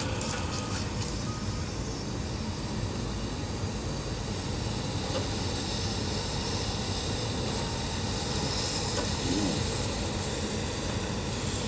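Caterpillar 568 tracked forest machine running steadily as it crawls and works its boom and grapple: diesel engine and hydraulics under load.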